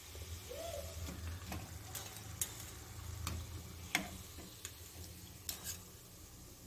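Steel slotted spoon clinking against a wire frying strainer and a steel kadai as fried vadas are lifted out of hot oil: a few sharp, scattered clinks over the faint sizzle of the oil.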